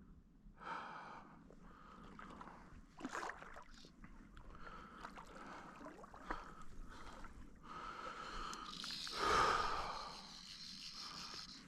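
Heavy breathing after landing a large trout, mixed with water sloshing. A series of noisy breaths, the loudest a long rush of breath about nine seconds in.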